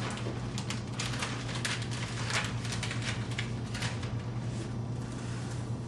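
Plastic laminating film crackling and rustling in quick irregular bursts as it is handled and threaded under a roll laminator's idler bars, over a steady low hum.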